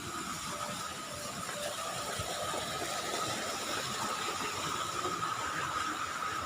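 Steady ambient hiss with a constant high whine running through it.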